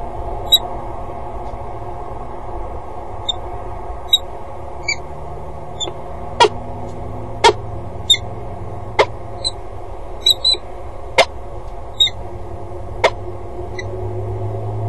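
Peregrine falcon giving short, sharp calls, one every second or two, over steady background noise with a low hum.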